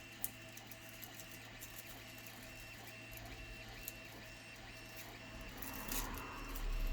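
A machine running steadily in the shop, most likely a 3D printer's stepper motors: a low hum with a high tone that pulses on and off about twice a second. Near the end a soft rustle of handling rises over it.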